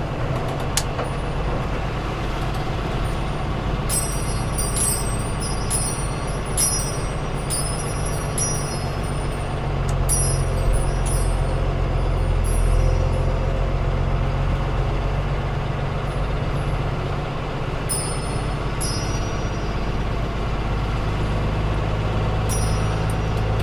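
Converted school bus driving on the road: a steady low engine drone that grows a little louder partway through, with short high-pitched rattles and squeaks coming and going.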